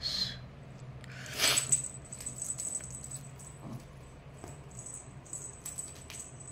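Small bell on a cat collar jingling in short, irregular clusters as a kitten bats and paws at the collar. A louder scratchy rustle about a second and a half in, with a faint steady low hum underneath.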